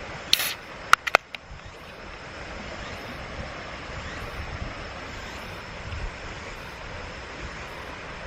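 Steady rushing of a mountain stream. About half a second in there is a short hiss, then three sharp clicks close together around the one-second mark.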